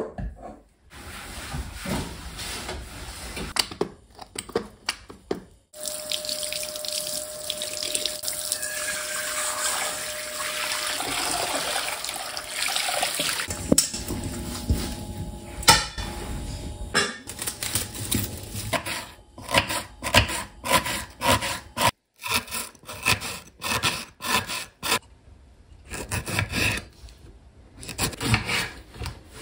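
Water running from a tap into a ceramic kitchen sink for several seconds. It is followed by a long series of irregular knife chops on a wooden cutting board.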